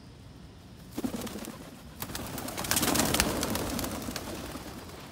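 A flock of feral pigeons taking off together, wings clapping and flapping. A first burst comes about a second in, then a louder, longer burst from about two seconds that fades away.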